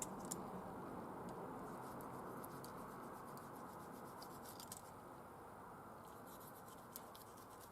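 Faint scratching and a few light clicks over a steady low hiss: the protruding ends of a rubber tyre-plug strand being cut off.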